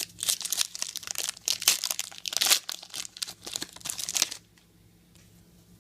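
Trading card pack wrapper crinkling and tearing as it is ripped open and crumpled by hand, a dense rapid crackle that stops abruptly about four seconds in.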